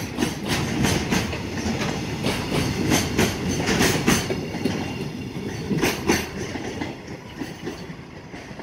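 Freight train's container flatcars rolling past at speed, wheels clicking and clattering over the rail joints over a steady rumble. The clatter fades away after about six seconds as the end of the train goes by.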